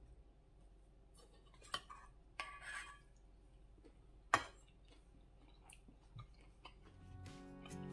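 Quiet eating sounds: light clicks of wooden chopsticks on a steel camping plate and a short crunch of chewing about two and a half seconds in, with the sharpest click a little past four seconds in. Music starts to fade in near the end.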